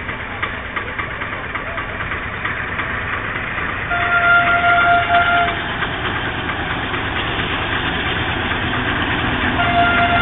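Diesel passenger train approaching, its engine rumble growing louder. The locomotive's horn sounds one steady blast of about a second and a half some four seconds in, and starts again near the end.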